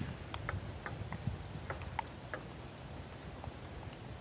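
Table tennis balls clicking off paddles and tables in rallies, a quick irregular series of sharp ticks that thins out after about two and a half seconds.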